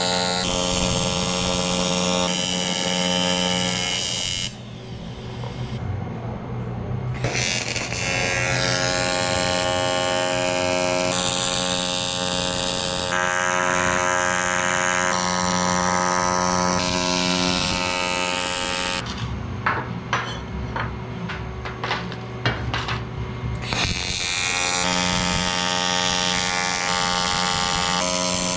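AC TIG welding arc buzzing steadily while aluminum radiator tanks and fittings are welded. The buzz breaks off twice, about four seconds in and again around twenty seconds, with a few sharp crackles in the second break.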